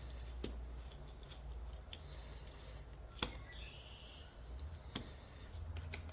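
A few light, sharp clicks and taps from hand work on a dirt bike's throttle cable adjuster, backing it off to give the cable some play, over a low steady hum.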